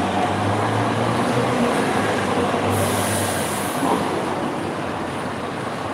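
Steady street traffic noise with the low hum of a heavy vehicle's engine, and a brief high hiss about three seconds in.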